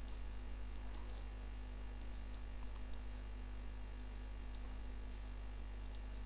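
Steady electrical mains hum in the recording, with a few faint ticks scattered through it.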